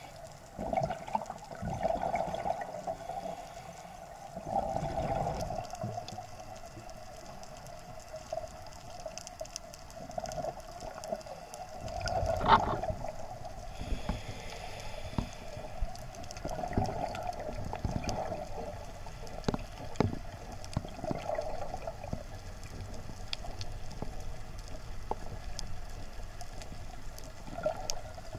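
Underwater sound through an action-camera housing: a scuba diver's exhaled bubbles rising from the regulator in bursts every few seconds, the loudest a little under halfway through. Scattered sharp clicks and a steady hum run underneath.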